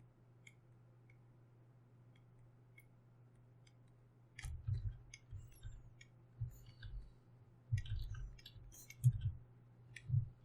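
Irregular clicking and light knocks from working a computer's input devices at a desk, over a faint steady low hum. A few faint clicks at first, then much busier from about four seconds in.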